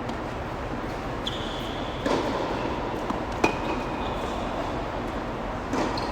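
Tennis balls being struck or bounced on a court: three sharp knocks spaced a second or two apart, the middle one the sharpest, over a steady outdoor hiss with faint high tones.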